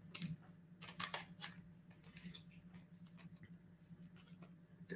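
Faint scratching and light clicks of fingers handling a trading card, a few sharper ticks in the first second and a half, then quieter rubbing, over a faint steady low hum.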